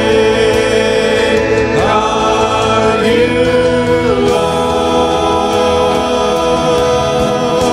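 Worship music: a voice holding long sung notes, wavering on the first one, over steady instrumental accompaniment.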